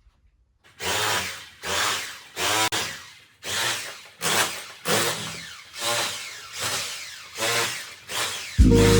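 A hand or power tool working on the old window or wall in about ten harsh, evenly repeated strokes, roughly one every 0.8 seconds, each sharp at the start and fading away. Background music comes in near the end.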